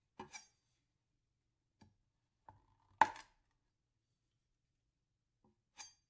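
A few scattered, sharp knocks and clicks at irregular intervals. The loudest, about three seconds in, has a short ringing tail.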